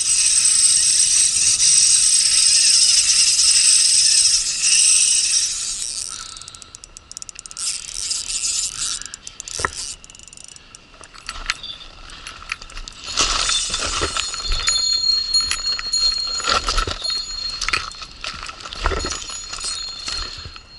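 Spinning reel's drag paying out line to a big carp on the run: a steady high buzz for about six seconds, then stop-start bursts of rapid drag clicks as the fish keeps taking line.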